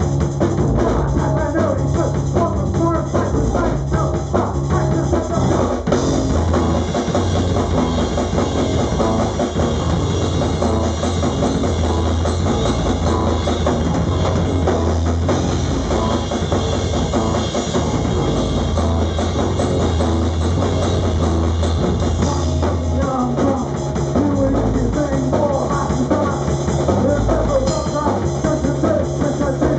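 A live rock band playing: a drum kit and an amplified electric guitar, loud and continuous.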